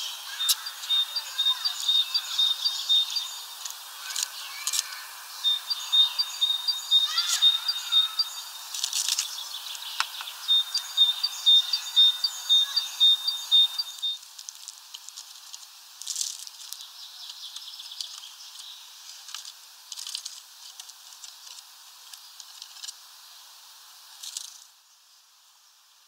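A small songbird singing three phrases of rapid, evenly repeated high notes, over light tapping and scratching from birds feeding. The singing stops about halfway through, leaving only scattered faint taps.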